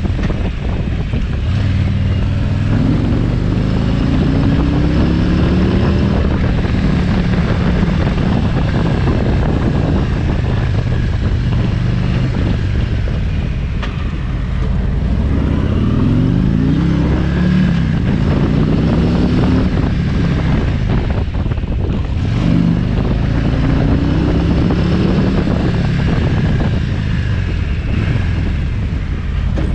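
2019 Harley-Davidson Road King's Milwaukee-Eight 107 V-twin engine (1745 cc) running under way, its revs climbing three times as the bike accelerates, with wind on the microphone.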